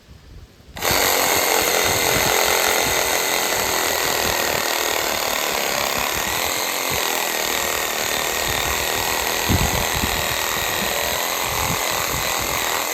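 Cheap cordless reciprocating saw starting up about a second in and running steadily as its blade saws through a branch: a constant high motor whine over uneven low thuds from the cutting strokes.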